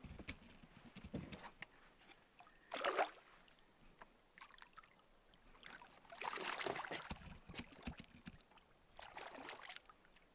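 Water splashing as a hooked smallmouth bass thrashes at the surface beside a canoe and is grabbed by hand. The splashing comes in three short bursts, about three, six and nine seconds in, the middle one the longest.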